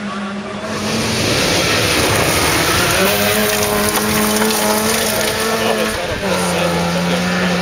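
Trabant rally car's two-stroke twin-cylinder engine running at high, steady revs over a hiss of tyres on gravel; its pitch steps slightly lower about six seconds in.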